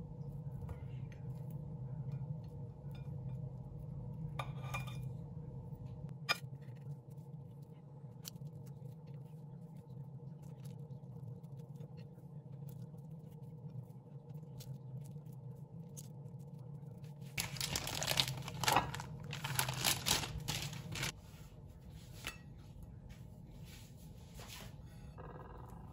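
Quiet food-prep handling over a steady low hum: a few light knife-on-plate clicks while bananas are sliced, then about three seconds of louder rustling and clatter a little past the middle.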